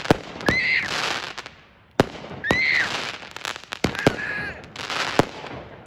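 Consumer aerial fireworks going off: a series of sharp bangs, one every second or two, each followed by a short high whistle that rises and falls and a crackling hiss as the shells burst.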